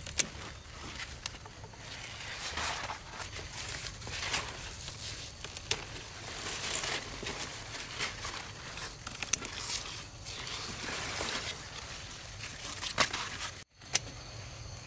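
Rustling and crackling of leaves and plant stems being handled, with many sharp snaps and clicks. Near the end it cuts off abruptly, and steady high insect chirring follows.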